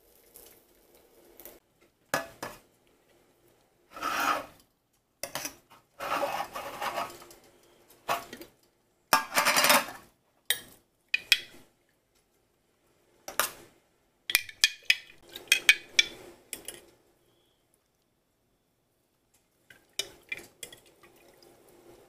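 Several short scraping strokes, then quick light clinks and taps of a metal spoon against a stainless steel sierra cup as pickled vegetables are scooped in.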